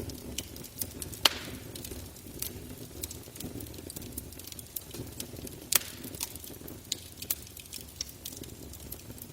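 Wood fire crackling, with irregular sharp pops and snaps from the burning wood, the two loudest about a second in and near six seconds in, over a steady low rush.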